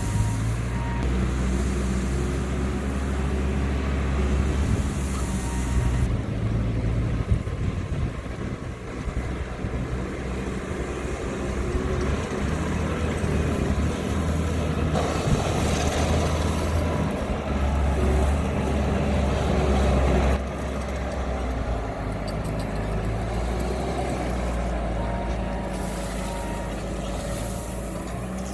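Bobcat T650 compact track loader's diesel engine running and working, its low steady drone shifting in pitch and level as the machine moves. The sound changes abruptly a couple of times.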